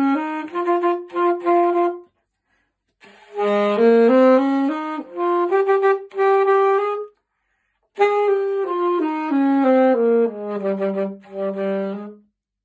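Alto saxophone playing a short melody in three phrases with brief pauses between them. The first two phrases climb in steps and then repeat a few held notes. The last phrase starts high, steps back down and ends on repeated low notes near the end.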